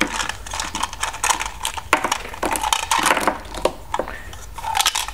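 Hard plastic Mrs. Potato Head parts clattering and clicking against each other as they are pulled out of the toy's hollow storage compartment. The clicks come in a quick, irregular run.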